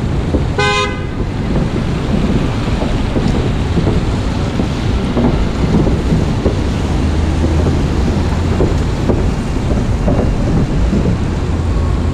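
A vehicle horn toots once, briefly, about half a second in, over steady city traffic noise.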